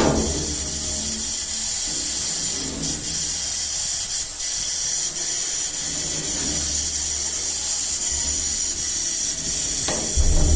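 Stick-welding arc crackling and sizzling steadily, with a low electrical hum underneath.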